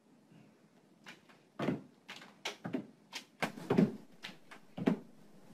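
A cat leaping at a wall and scrabbling against it, its body and paws knocking on the wall: about ten sharp, irregular thumps over a few seconds.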